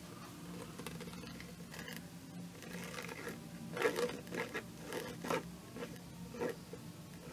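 Quiet rustling and scraping of paper as a small paper pocket and a glue bottle are handled, with a few soft brushes and scuffs in the second half.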